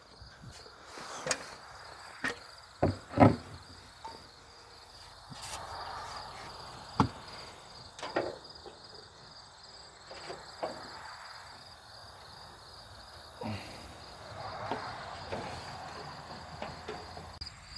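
Sheet-metal front fender of a Ford F-150 being handled and set in place on the truck: scattered clunks and knocks, loudest in the first few seconds. A steady high chirring of insects runs underneath.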